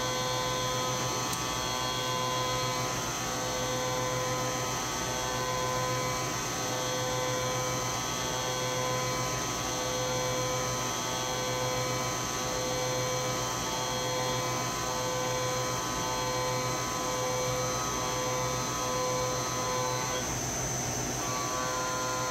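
SYIL X7 CNC milling machine cutting a metal part with a small end mill: a steady machining whine made of several tones, one of which pulses on and off a little under once a second, and which breaks off briefly near the end. A steady mains-type hum from the shop's phase converter runs underneath.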